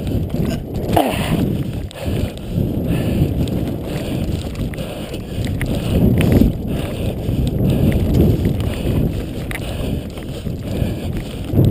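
Mountain bike ridden fast over a dirt singletrack: tyres rolling on the dirt and the bike rattling and knocking over bumps, with wind rumbling on the microphone.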